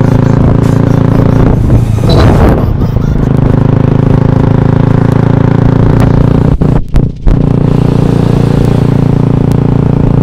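Royal Enfield single-cylinder motorcycle engine running steadily as the bike rides along, heard from the rider's seat. A short rush of noise comes about two seconds in, and the engine sound briefly dips about seven seconds in.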